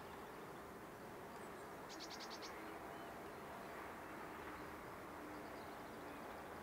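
Honey bees humming around an open hive: a faint steady drone, with single bees' flight tones passing now and then. A short high trill of about six quick pulses sounds about two seconds in.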